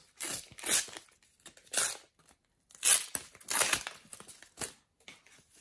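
A sticker packet's wrapper being torn open and crinkled by hand: a series of short, sharp tearing and rustling noises.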